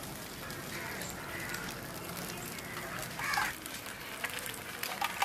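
Two eggs frying in oil in a black iron pan over a coal fire: a steady sizzle. A brief call sounds in the background about three seconds in.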